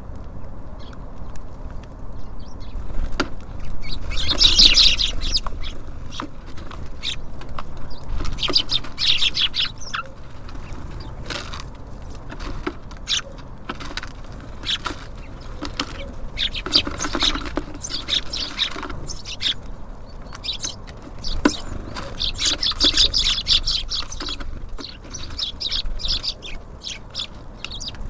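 Small songbirds at a feeder, such as tits and sparrows, chirping in short bouts several times, with scattered sharp taps and clicks between the calls over a steady low rumble.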